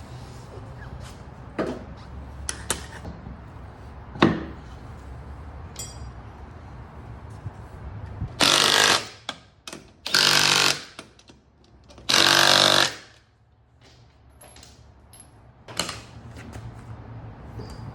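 A power tool run in three short bursts of about a second each, around the middle. Before the bursts come a few sharp knocks and clicks, all over a steady low hum.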